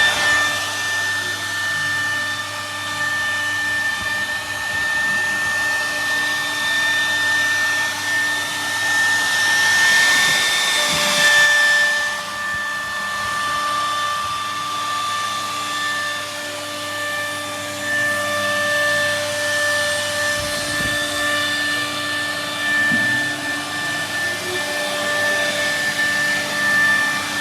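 CNC router spindle running with a steady high whine while milling wood. A louder rush of cutting noise comes about ten seconds in.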